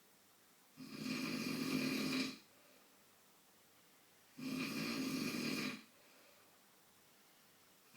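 A man snoring in his sleep: two long snores, each about a second and a half, roughly three and a half seconds apart with quiet breathing gaps between, and a third starting at the very end.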